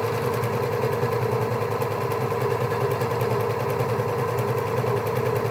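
Janome three-thread overlocker running steadily at full speed, stitching and trimming a seam edge with a fast, even mechanical whirr.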